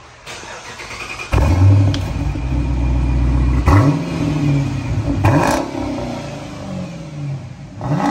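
Chrysler 300S's 5.7-litre Hemi V8 revved through its exhaust with the mid muffler and resonator deleted: loud and deep, jumping up sharply about a second in, then blipped a couple more times with the revs rising and falling.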